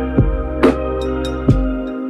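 Lo-fi beat: a slow kick drum and a snare hit over held, sustained chords.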